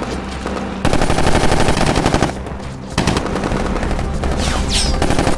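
Two long bursts of rapid automatic machine-gun fire, the first about a second in and the second about three seconds in, over a low steady rumble.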